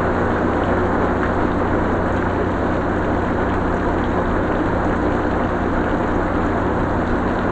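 Steady heavy rain falling, an even dense rush of noise with no breaks, and a low steady hum underneath.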